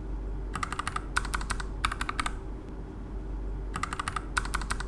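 Low-profile mechanical keyboard being typed on: short quick runs of clacking keystrokes, a pause of about a second and a half in the middle, then more runs. A steady low hum lies underneath.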